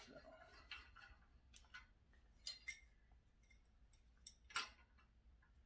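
A few scattered light clicks and taps of metal stand parts and bolts being handled during assembly, the loudest about four and a half seconds in.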